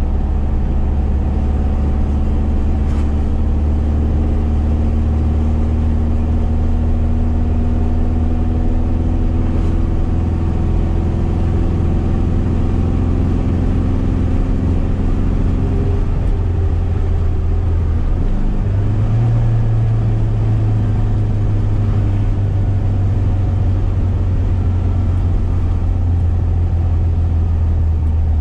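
1973 VW SP2's air-cooled flat-four, running on dual 40 carburettors through a stainless exhaust, heard from inside the cabin while driving. The engine note climbs slowly for a while, changes a little over halfway through, then holds steady.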